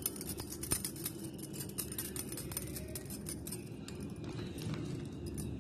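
Metal spoon clicking and scraping against small glass bowls while chopped garlic is tipped into butter and stirred: a run of light, irregular clicks and clinks.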